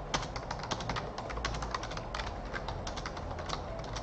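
Typing on a computer keyboard: a quick, irregular run of key clicks, several a second.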